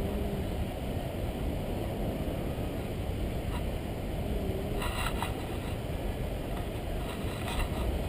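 Wind buffeting the microphone of a stick-held camera on a tandem paraglider in flight: a steady low rumble, with a short cluster of clicks about five seconds in.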